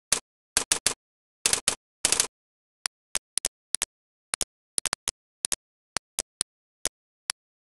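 A computer mouse clicking repeatedly: about twenty short, sharp clicks, several in quick pairs, with a denser run of clicks around two seconds in.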